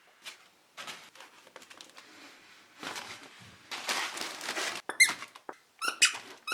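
Scuffling and rustling, then a few short, high-pitched squeaks about five and six seconds in.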